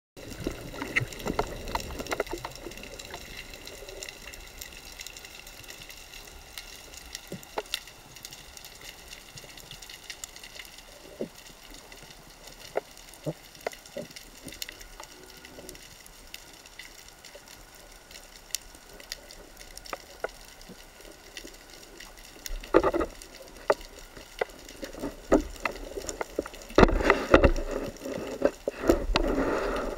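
Underwater ambience: a steady faint hiss with scattered sharp clicks and crackles. From about three-quarters of the way in come louder bursts of rushing water and knocks.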